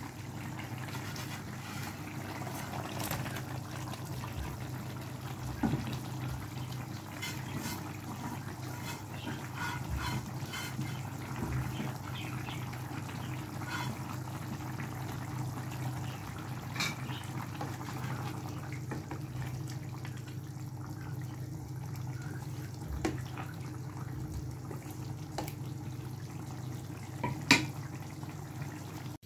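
Spinach and fish curry bubbling as it simmers in a pan, with scattered small pops over a steady low hum. A sharp click near the end is the loudest event.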